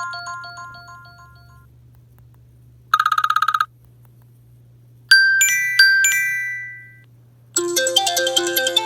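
iPhone ringtones played one after another: the tail of one melody fading out, a brief, fast trilling buzz, two bright chime strikes that ring out, then a busier melodic ringtone starting near the end.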